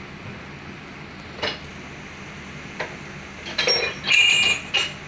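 Metal water pump parts clinking as they are handled while an oil seal is fitted over the pump shaft: a few light clinks, then a louder run of ringing metallic clinks near the end.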